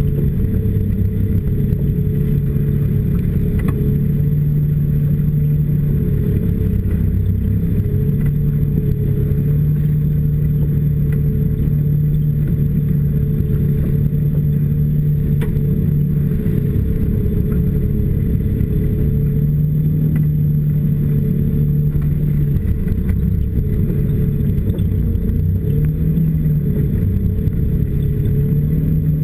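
Snowmobile engine running steadily while riding over snow, its pitch rising and dipping slightly with the throttle.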